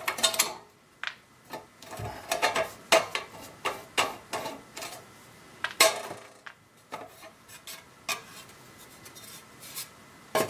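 Irregular clicks, clinks and light scraping of hand tools and small parts being handled inside an old battery charger, with a few sharper knocks about three and six seconds in.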